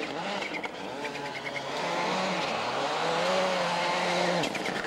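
Ford Focus WRC rally car's engine revving hard on a snow stage, its note rising and falling with the throttle, held high for about a second and a half, then dropping sharply near the end with a few cracks as the driver lifts off.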